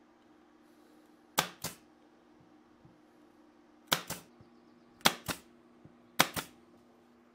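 Porter-Cable pneumatic nailer driving nails into a plywood rail: four shots, each a sharp double crack, spread a second or more apart.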